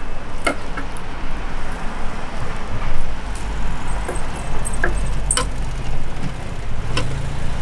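Steady low motor-vehicle rumble with a few sharp knocks scattered through it.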